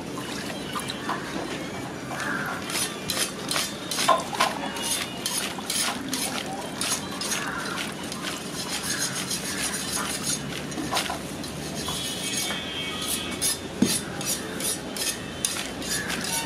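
Scoop and metal jug clinking and scraping against a large metal vessel as a milky junnu mixture is stirred and dipped out to pour into clay pots: a run of sharp clicks and clinks over steady background noise.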